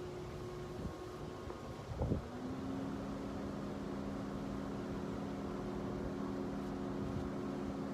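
A steady motor hum. After a brief thump about two seconds in, its pitch shifts down to a lower, steady tone.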